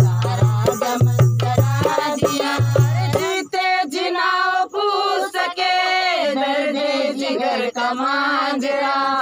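A man singing a devotional song to a dholak, the two-headed barrel drum, whose deep strokes beat under the voice for the first three seconds or so. Then the drum stops and the voice carries on alone in long held notes.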